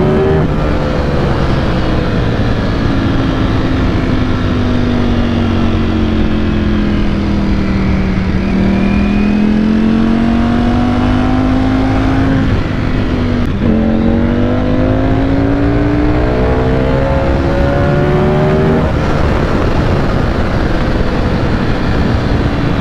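Ducati Panigale V4 S's 1103 cc V4 engine pulling hard at highway speed from on the bike, with steady wind rush. The engine note sinks slowly for several seconds, then climbs under throttle. It drops sharply at a quick upshift about halfway through, climbs again, and fades back as the throttle eases near the end.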